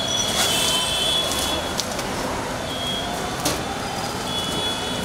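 Steady street traffic noise, with a few sharp knocks and crackles as a plastic-wrapped photocopier stand is pulled out of its cardboard box.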